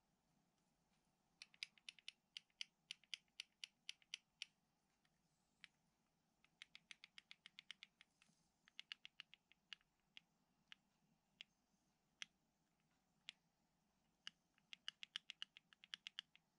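Fingers handling a small two-piece jointed wooden swimbait, making quick, light clicks and taps in bursts of about five a second, with scattered single clicks in between.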